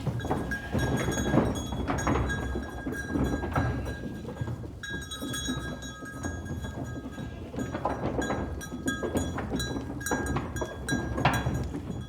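Bells on a moving goat herd clanking and ringing irregularly, several pitches sounding at once with sharp clanks throughout and a shift in the ringing about five seconds in.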